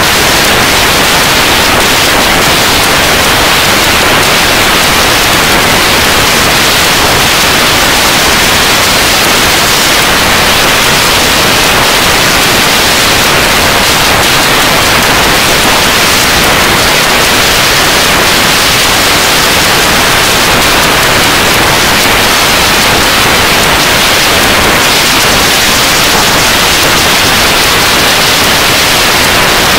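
Loud, steady hiss of static like white noise, even from start to finish with no change in level and no other sound standing out.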